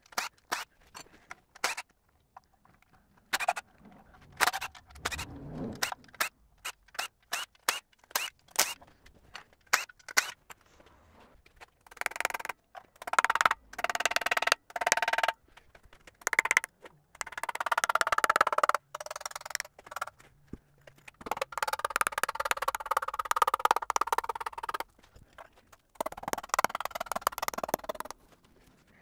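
Hammer blows knocking at the oil pan of a 1.9L ALH TDI engine to break loose its gasket-glue seal: many separate sharp taps and knocks in the first ten seconds. After that come longer stretches of rapid, ringing metallic strokes, broken by short pauses.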